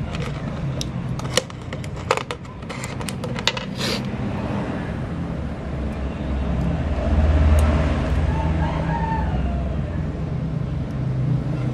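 Sharp clicks and taps of a PET bottle strip being handled and pushed into a heated filament nozzle during the first four seconds, then a steady low hum that swells about halfway through. A rooster crows in the background.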